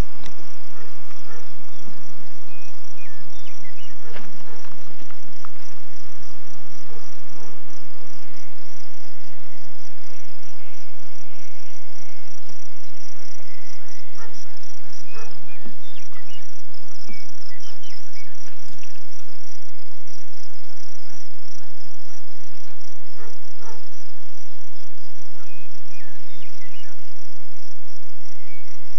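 Insects trilling in a steady, high-pitched, finely pulsing drone, with a few short faint chirps scattered through it.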